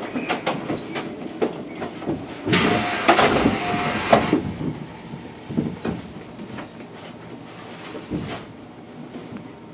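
JR Central 373 series train car standing at a station stop: scattered clicks and knocks, with a burst of hissing about two and a half seconds in that carries two short beeps and lasts under two seconds.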